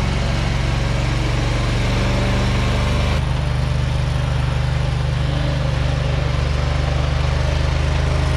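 Struck Magnatrac 7000 mini-dozer backhoe's engine running steadily as the machine is manoeuvred. The engine note changes about three seconds in, then holds steady again.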